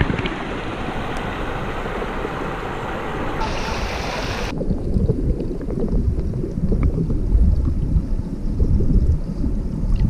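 Mameyes River rapids rushing and splashing over rocks, heard just above the water. About four and a half seconds in the microphone goes under the surface and the sound turns suddenly muffled: a low underwater rumble and churn of the current.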